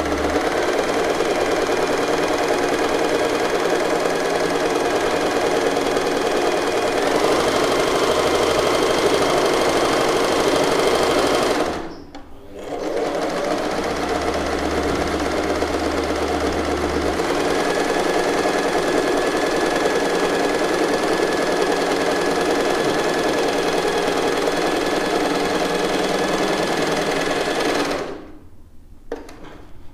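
Usha Janome Stitch Magic electric sewing machine running steadily at speed, driven by its foot control while stitching a rolled picot hem. It stops briefly near the middle, runs again, and stops shortly before the end.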